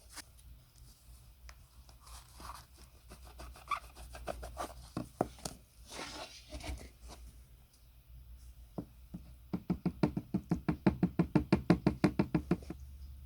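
Workshop hand-tool work: scattered light knocks and scrapes, then from about nine seconds in a fast, even run of knocks, about nine a second for some three seconds, growing louder before stopping.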